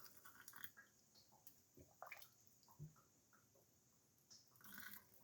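Faint sounds of hot pickle brine being poured into a glass jar: a few light clinks, then a short, slightly louder pour near the end.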